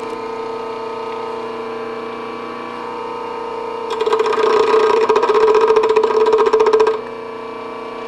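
Bench grinder running with a steady hum; about four seconds in, the steel tip of a turning gouge is pressed against the wheel, adding a louder, rough grinding sound with a fast even pulsing for about three seconds before the wheel runs free again.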